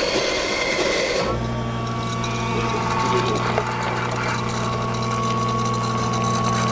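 Self-serve coffee machine dispensing a drink: its pump and motor start about a second in and run with a steady hum and a high tone.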